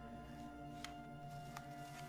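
Quiet music with long held notes, with two faint clicks in the middle.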